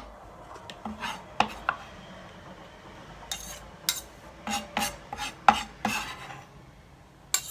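Kitchen utensils scraping and knocking against dishware in irregular short strokes, with about a dozen sharp clicks, as finely chopped garlic, parsley and citrus peel are gathered and mixed together.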